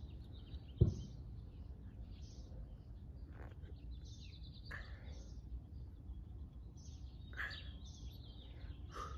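Small birds chirping on and off in short phrases over a steady low outdoor rumble, with a single thump about a second in.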